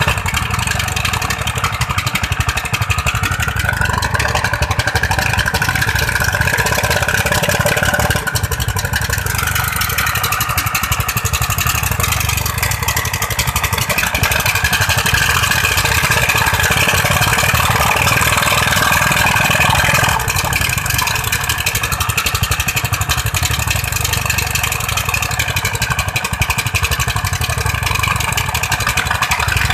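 Dompeng diesel engine driving a floating sand-suction pump, running steadily under load.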